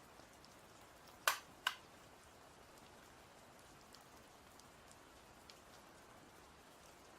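Two sharp clicks in quick succession about a second in, less than half a second apart, as hardware is handled, over a faint steady hiss with a few faint ticks.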